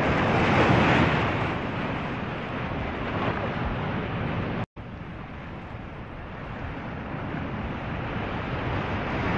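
Steady rushing noise of wind and open water. It cuts out for an instant a little under five seconds in and comes back quieter.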